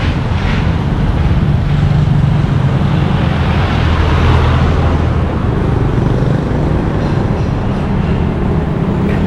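Road traffic, with a vehicle engine running close by as a steady low hum; a passing vehicle's noise swells and fades about three to five seconds in.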